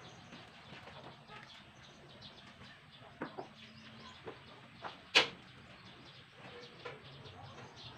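Scattered short taps and knocks, the loudest a sharp knock about five seconds in, with chickens clucking in the background.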